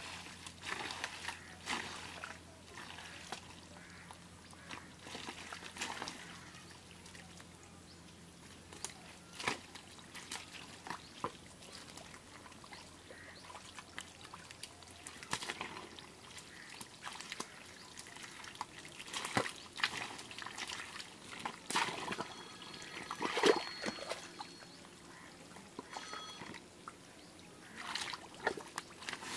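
Hands squelching and splashing in wet mud and shallow muddy water, groping for eels: irregular wet slaps, sloshes and trickles, a few louder splashes now and then.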